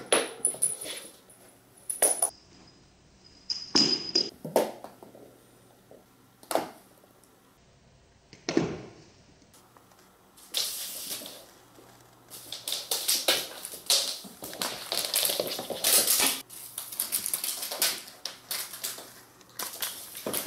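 Norwegian Forest cat playing with small toys on a laminate wood floor: scattered knocks and skitters as the toys are batted about, then from about halfway a dense stretch of rapid clattering and scrabbling.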